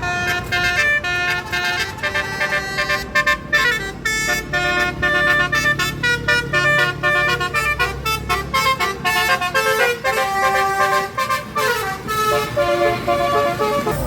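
Bus 'telolet' horn: a set of multi-tone air horns playing a fast, continuous run of notes, changing pitch every fraction of a second, with some notes sliding. The bus engine runs low underneath.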